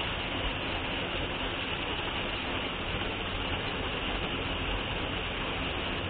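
Waterfall pouring into a pool: a steady, even rush of falling and splashing water.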